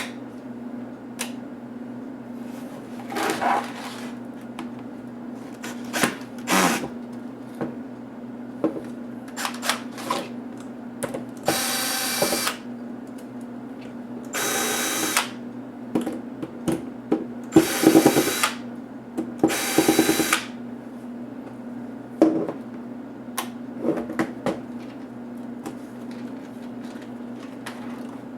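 Small electric screwdriver running in four short bursts of about a second each, backing out laptop screws, with clicks and knocks of parts being handled between the runs.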